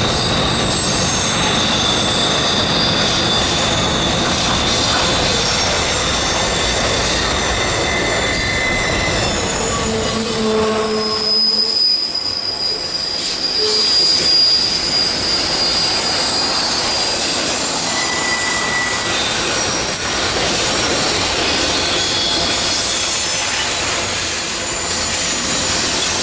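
Double-stack intermodal container train rolling through a curve, its steel wheels squealing against the rails: several high, thin squeal tones come and go over the steady rumble and clatter of the passing cars.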